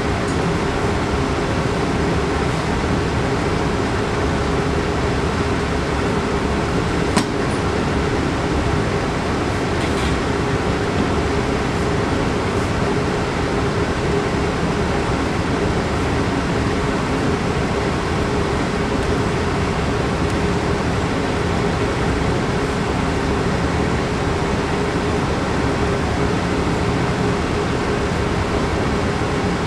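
Steady hum and rush of room ventilation, unchanging throughout, with a low steady tone in it. A single sharp click about 7 seconds in.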